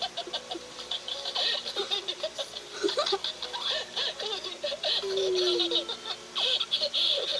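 Giggling and laughter in quick bursts, played through a television speaker.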